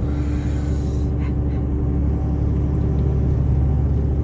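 Steady low rumble of a big-rig diesel truck's engine heard inside the cab, with a constant hum over it.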